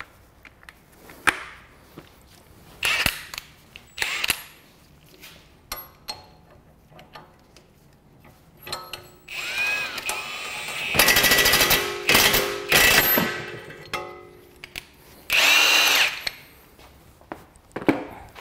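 Cordless power tool run in several trigger bursts, its motor whining up and down, with a stretch of rapid hammering in the middle. A few metallic knocks of tools being handled come first.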